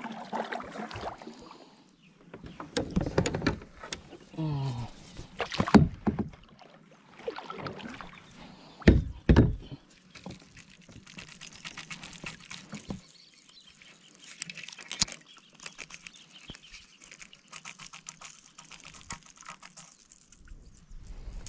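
Sit-on-top kayak being paddled, the paddle blades splashing in the water and knocking, the loudest stroke about nine seconds in. Later, fainter rapid fine ticking as a spinning reel winds line in on a cast.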